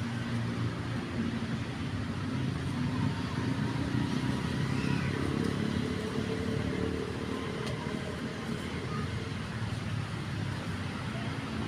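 Steady low hum of a running motor vehicle engine in street traffic.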